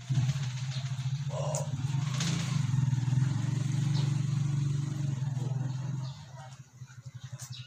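An engine idling steadily, a loud low hum with a fast even beat, starting abruptly; it drops in level about six seconds in and runs on unevenly.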